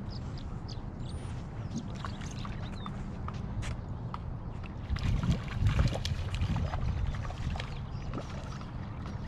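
A small hooked trout splashing at the surface as it is reeled in to the bank, loudest about halfway through, over a steady low rumble.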